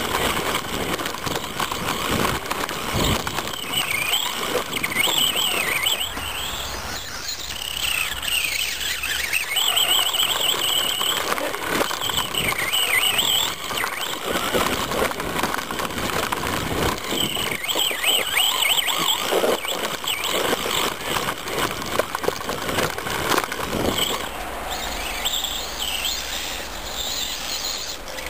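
Traxxas Stampede VXL's brushless electric motor and drivetrain whining, the high pitch rising and falling again and again with the throttle, heard close up from a camera riding on the truck. Under it runs the noise of tires churning through snow, with a few sharp knocks over bumps.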